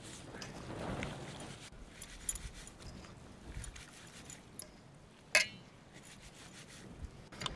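Hands swishing and squeezing chopped wet greens in a metal bowl of water, with soft splashing and rustling. A single sharp metallic clink rings out a little past halfway.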